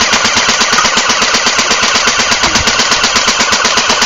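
Sustained full-automatic fire from an airsoft/BB gun: a rapid, even stream of shots without a break.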